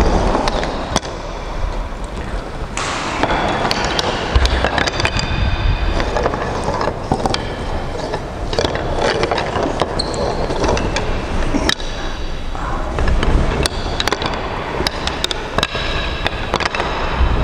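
Plastic rungs and nylon straps of an agility ladder clattering and knocking together on a wooden floor as the ladder is gathered and folded up, with many quick clicks and knocks throughout.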